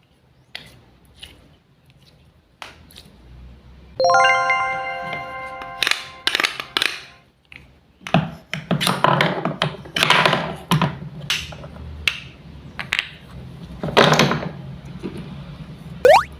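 Wooden toy fruit and vegetable pieces clicking and knocking, with scratchy noisy stretches as the pieces are cut apart. A single ringing chime sounds about four seconds in and fades over a couple of seconds, and a short rising tone comes near the end.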